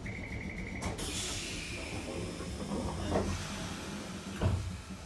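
Randen tram standing with a steady low electrical hum. A short pulsing beep is followed, about a second in, by a sharp release of compressed air that hisses for about two seconds, then a single thump near the end.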